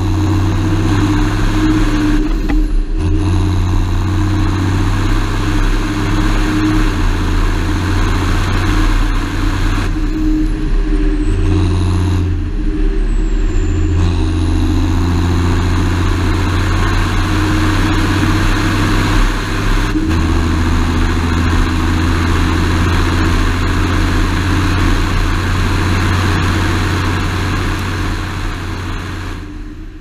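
John Deere 7530 Premium tractor's six-cylinder diesel running under way, heard close up over the bonnet. The engine note steps up and down several times and eases off near the end.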